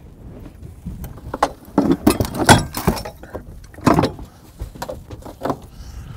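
Clattering knocks and bumps of gear being handled aboard a boat, loudest about two and a half and four seconds in, over a low wind rumble.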